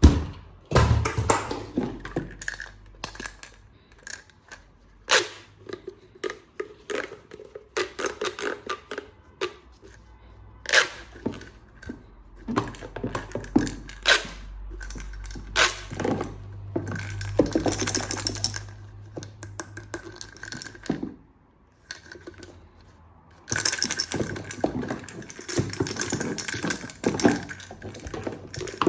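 Plastic toy parts and packaging being handled: a long string of clicks, taps and scraping rustles. A steady low hum comes in twice, about halfway through and again near the end.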